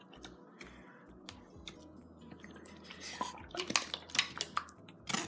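Sticky slime being squished and pulled by hand: a run of irregular wet clicks and pops, louder and denser in the second half.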